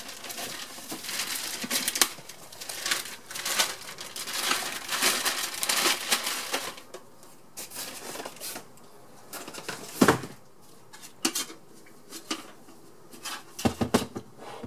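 Plastic-wrapped polystyrene packaging rustling and crinkling for several seconds as a bench multimeter is unpacked from its cardboard box, then scattered knocks and bumps as the instrument is lifted out and set down on the counter, the loudest knock about ten seconds in and a short cluster near the end.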